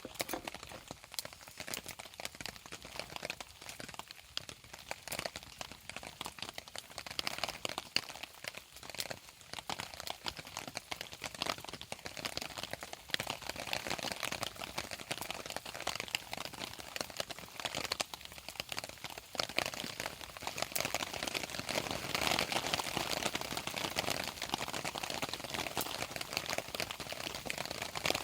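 Campfire crackling: a steady run of small snaps and pops, busier and louder about two-thirds of the way through.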